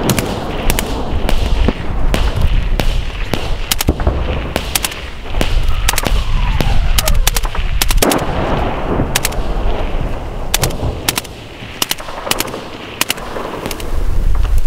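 Small-arms gunfire: shots fired one after another, two or three a second at uneven spacing, with a low rumble underneath.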